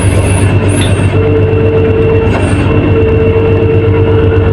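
A fishing vessel's engine running at sea, a loud steady drone with a low rumble and a constant hum.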